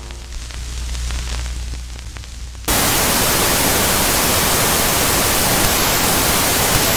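Television static sound effect: a low hum under a faint, rising hiss, then about three seconds in a loud, even static hiss suddenly takes over.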